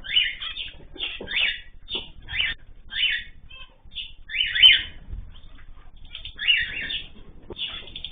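Small cage birds calling in short, repeated chirps, about one or two a second, with brief gaps between them.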